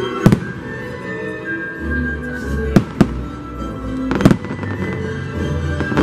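Aerial firework shells bursting in sharp bangs: one about a third of a second in, two close together near three seconds, and another just after four seconds. Show music plays continuously underneath.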